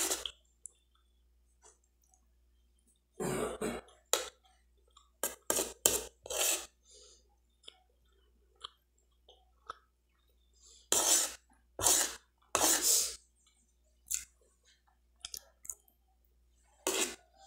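A woman coughing and clearing her throat in short fits while chewing a mouthful of couscous close to the microphone, three coughs coming in quick succession about two-thirds of the way through. The coughing comes from an allergy flare she complains of.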